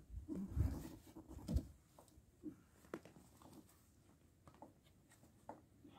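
Faint, scattered knocks and clicks of metal parts being handled at a car's front suspension as the axle and wheel hub assembly are worked into place, with a few duller thumps at the start.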